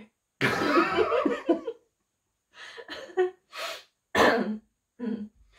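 Stifled laughter: a loud, breathy, cough-like burst about half a second in, then several short spluttering bursts.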